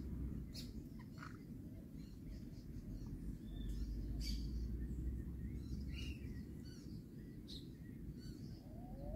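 Faint, short bird chirps scattered every second or so over a steady low rumble, with a brief rising call near the end.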